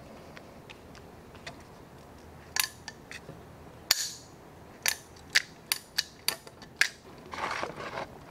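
Sharp metal clicks and clacks as the parts of an 1851 Navy cap-and-ball revolver's frame, hammer and arbor are handled, about eight in a few seconds, one ringing briefly. Near the end comes about a second of pouring liquid as Perma Blue is poured into a plastic tub.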